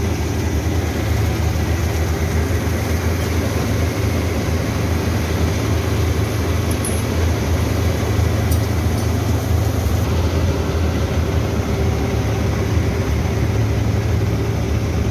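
Heavy diesel farm-machinery engine idling steadily, a low, even drone.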